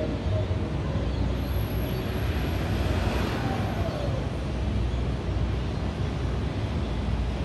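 Street traffic heard from high above: a steady low rumble, with a vehicle passing below whose sound swells and drops in pitch about three seconds in.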